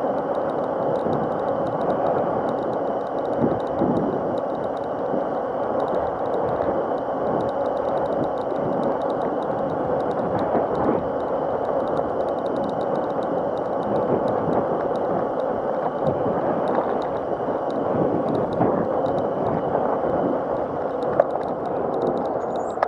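Razor MX500 electric mini dirt bike riding steadily: a faint, even motor whine over a constant rush of tyre and wind noise.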